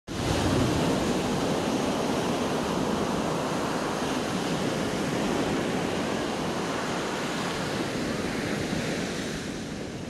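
Sea surf: small waves breaking and washing up a sandy beach in a steady rush, easing a little near the end.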